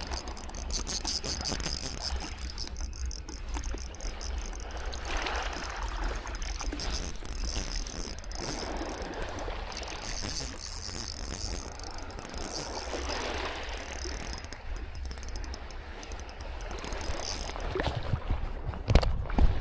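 Spinning reel being cranked with a fine, rapid clicking as a hooked small sea trout is played in on a bent rod, over a steady low wind rumble on the microphone and soft water sounds. A couple of sharp knocks near the end.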